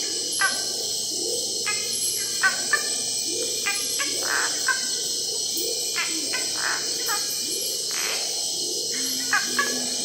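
Night chorus of an undisturbed primary equatorial rainforest: a dense, steady, high insect drone, with many short calls repeating over it, some higher with several pitched lines and some lower and curving.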